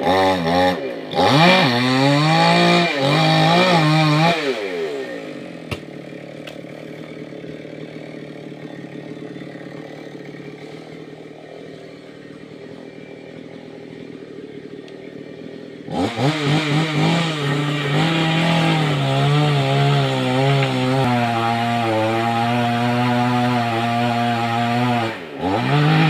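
Chainsaw cutting a mango tree: it revs in quick swings for the first few seconds, then drops to a quieter, lower idle for about ten seconds. It then runs loud and near full throttle again, its pitch wavering under load, with a brief dip near the end.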